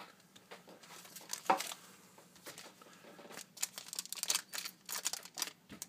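Crinkling of foil trading-card pack wrappers being handled by latex-gloved hands, with a sharp crackle about a second and a half in and denser crinkling in the second half.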